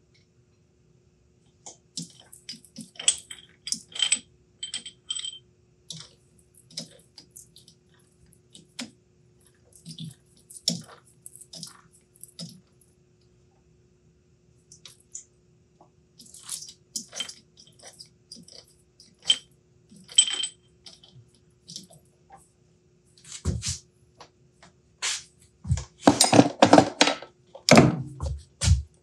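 Metal clinks, taps and scrapes as a lathe chuck is worked by hand with a key, coming in irregular bursts. A cluster of heavier knocks comes near the end. A faint steady hum runs underneath.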